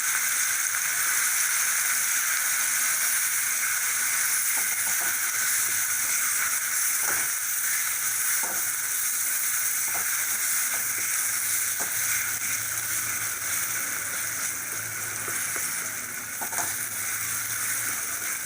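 Green chilli thecha sizzling steadily as it fries in a kadhai of hot oil tempered with mustard seeds, with a few faint knocks from the stirring spoon.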